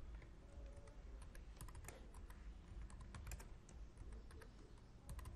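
Faint computer keyboard typing: short clusters of keystrokes as a new password is typed and then typed again to confirm it.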